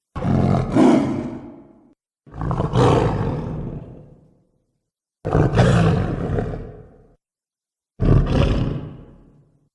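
Four separate roar sound effects for a Hulk-like monster, one after another, each starting sharply and fading out over a second or two, with dead silence between them.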